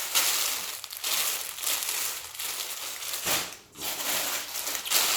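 Packaging rustling and crinkling as clothes are handled and pulled out of it, with a brief lull about three and a half seconds in.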